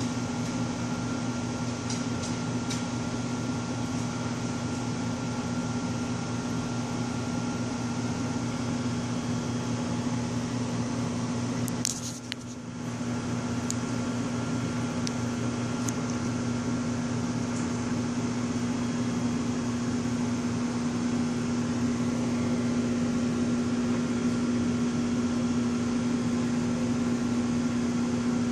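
Reef aquarium's pumps humming steadily with an even hiss. A few light clicks, with a brief dip in the sound about twelve seconds in.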